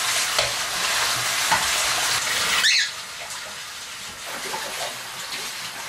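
Water running or pouring into a basin, hand washing, cutting off suddenly about three seconds in with a short squeak; afterwards quieter splashing and small knocks.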